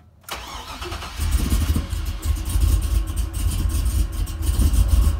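Swapped 6.0-litre V8 in a Silverado being started after a new fuel pump install: from about a second in it turns over with a loud, uneven low rumble.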